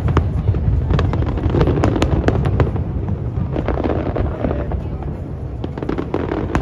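Aerial fireworks display: a continuous low rumble of shell bursts with many sharp crackling pops on top.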